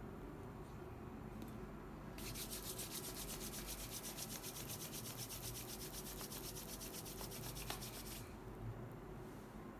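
Ear-cleaning work at a client's ear: a rapid, evenly repeating scratchy rustle that starts about two seconds in and stops about six seconds later.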